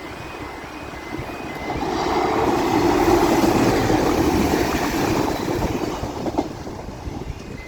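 Northern Ireland Railways diesel multiple unit passing over a level crossing, building up about two seconds in, loudest in the middle and fading away near the end, with a rattle of wheels on the rails. The crossing's repeating two-tone warning alarm sounds before and after the train drowns it out.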